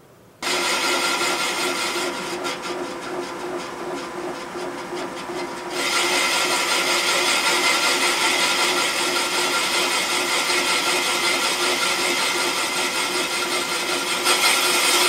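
Serdi valve-seat machine spindle driving a boring cutter into a cast-iron Pontiac 455 cylinder head, cutting the valve seat pocket out for a press-fit seat insert. The spindle starts suddenly about half a second in, with a steady hum. About six seconds in, the cutter bites harder and the cutting gets louder and harsher, with metal chips coming off.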